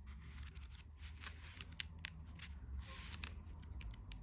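Pages of a glossy guidebook being turned, a run of soft paper clicks and rustles.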